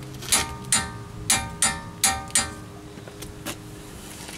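A torque wrench on the wheel-spacer lug nuts makes a quick run of about six sharp metallic clicks, each ringing briefly, then two fainter ones, as the lug nuts are tightened and checked to the set torque.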